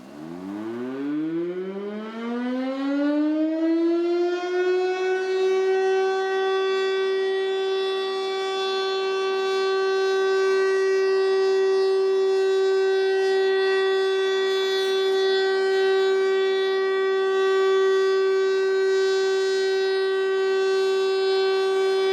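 Outdoor warning siren sounding for a tornado warning: it winds up in pitch over the first few seconds, then holds one steady tone.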